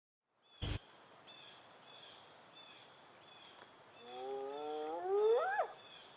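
A drawn-out animal call that rises in pitch for under two seconds and breaks off sharply, starting about four seconds in. It is preceded by a single sharp knock, with faint high chirps repeating about every 0.7 s behind it.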